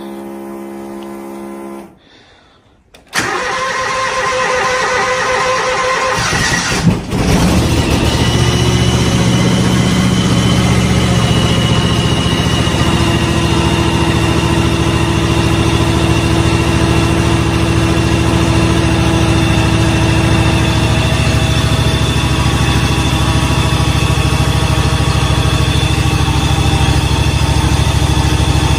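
Cold start of a John Deere X724 garden tractor engine at about −40°C. A steady electronic tone sounds for about two seconds as the key is switched on. The engine then cranks from about three seconds in and catches with a jolt around seven seconds, then runs steadily.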